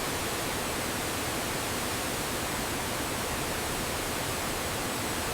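Steady, even hiss-like noise with no rhythm or events, over a faint thin high whine.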